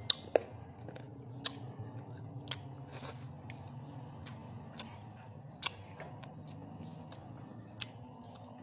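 Close chewing and crunching of roast pork (lechon baboy), with sharp, irregular crackles about once a second over a low steady hum.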